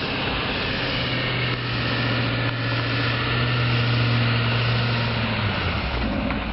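Pickup truck engine running as it tows a trailer loaded with sheds slowly past, a steady low drone that drops lower near the end.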